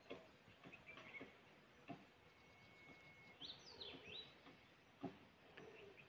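Faint birdsong: one long steady whistle about two seconds in, then a quick run of higher, stepping notes. A few soft knocks or taps sound between the calls, the sharpest about five seconds in.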